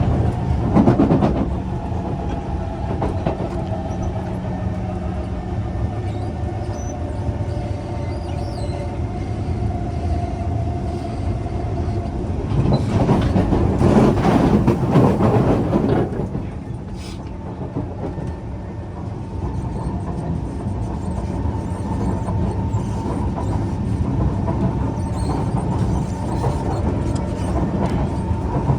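Kawasaki C151 metro train running, heard from inside the car: steady wheel and running noise with a faint whine. It swells louder for a few seconds about halfway through, then settles back.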